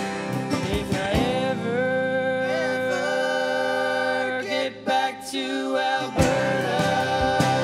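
Live country-bluegrass band: male voices hold long sung notes over acoustic guitar and banjo. The sound thins out briefly about five seconds in, then the full band comes back in with drums.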